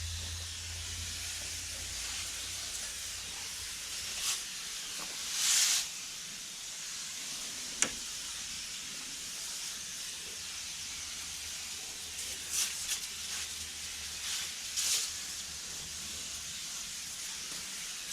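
Water spraying from a wand onto an engine bay: a steady hiss that swells louder several times as the jet sweeps over parts, with one sharp click about eight seconds in.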